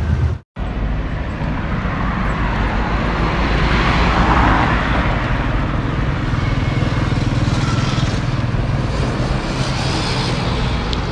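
Road traffic and vehicle engine noise, a steady low rumble with a louder vehicle passing about four to five seconds in. The sound cuts out for a moment near the start.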